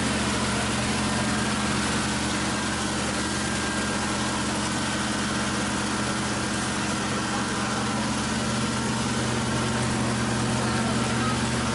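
An engine idling steadily with a constant low hum that does not change in pitch.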